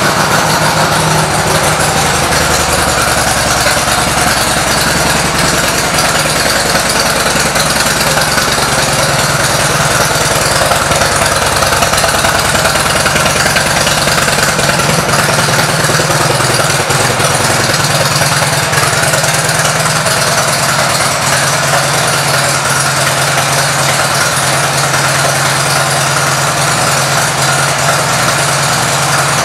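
2007 Harley-Davidson Road King Classic's Twin Cam 96 V-twin idling steadily through an aftermarket exhaust.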